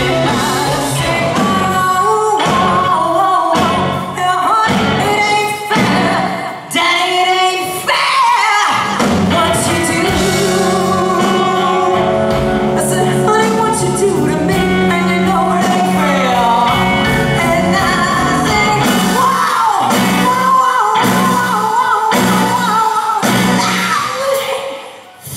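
Woman singing a slow blues with a live rock band of electric guitar, bass guitar and drum kit. Drum strokes punctuate the first few seconds and the last few, with a long held note through the middle.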